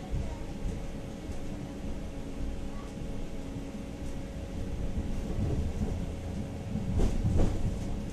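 Tatra-Yug K1-T306 tram running along the track, heard from inside the car: a steady low rumble of wheels on rail with a faint steady hum, and two louder knocks near the end.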